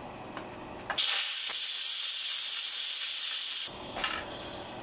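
Instant Pot's steam release valve venting in a quick release, letting out the pressure left after cooking: a loud hiss of steam that starts about a second in and cuts off suddenly under three seconds later.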